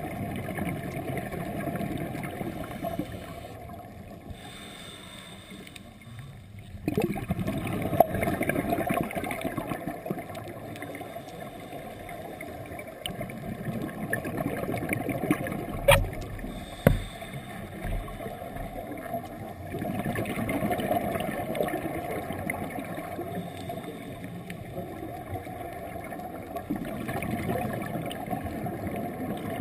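Underwater sound of a scuba diver breathing through a regulator: gurgling surges of exhaled bubbles swell and fade every few seconds. Two sharp knocks come about a second apart midway through.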